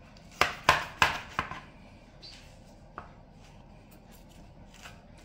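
Kitchen knife cutting down through a watermelon wedge onto a cutting board: four sharp knocks in quick succession about half a second in, then a single fainter knock about three seconds in.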